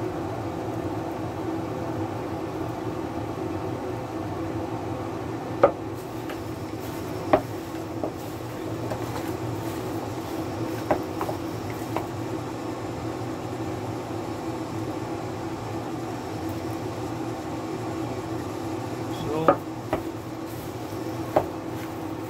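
A gloved hand mixing raw chicken wings in a plastic bowl, with a few short sharp knocks against the bowl, over a steady mechanical hum.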